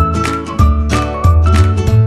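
Background music with a steady beat: plucked guitar, bass and drums under a whistled melody.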